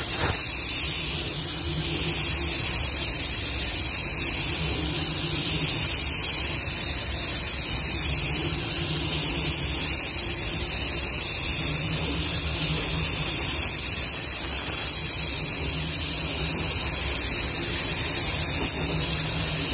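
Automotive spray gun atomising clearcoat with a steady hiss of compressed air, a low hum underneath.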